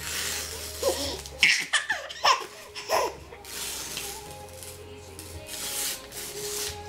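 Laughter in several short bursts about one to three seconds in, between stretches of rustling, tearing-like noise from the paper being 'shredded'.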